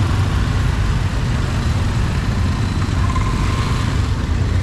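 Steady street-traffic noise, a continuous low rumble of vehicles going by, with no single event standing out.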